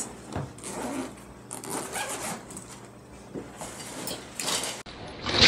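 Zipper of a fabric duffel bag being pulled open in a series of short strokes. Right at the end, after a cut, a loud rushing noise begins.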